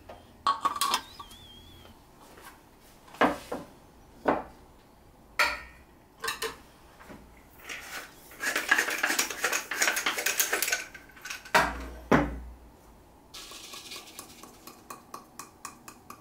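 Dishes and cutlery clinking: several separate knocks, a longer stretch of scraping and clattering in the middle, then a string of light ticks near the end.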